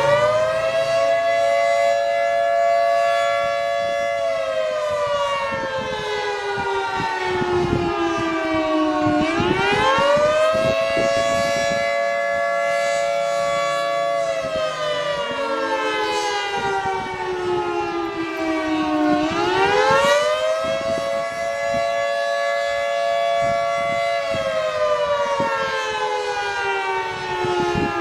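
Federal Signal 2T22 dual-tone outdoor warning siren sounding its Attack (civil defense) cycle. The wail climbs quickly, holds its top pitch for a few seconds, then slowly falls, repeating about every nine to ten seconds, with two close tones sounding together.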